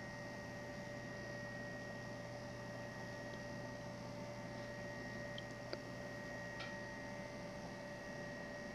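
Steady faint electrical hum with room hiss, and a few faint small clicks around the middle as small wooden and card parts are handled.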